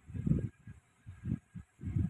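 Pencil strokes on sketchbook paper, heard as irregular dull rubbing sounds, strongest near the start and again near the end.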